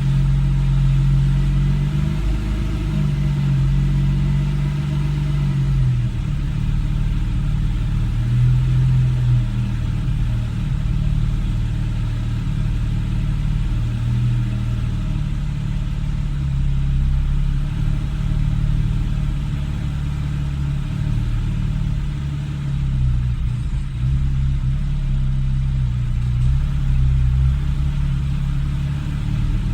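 2013 Porsche 991 Carrera 4S's 3.8-litre flat-six idling roughly, its low note wavering unevenly up and down instead of holding steady: the rough idle the owner is trying to trace.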